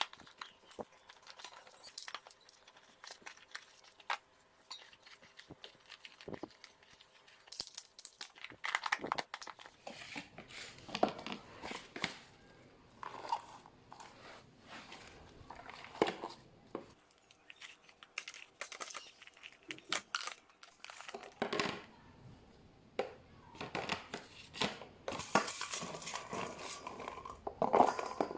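Plastic food packaging and bags crinkling and rustling as they are handled, in irregular bursts with light knocks and clicks between.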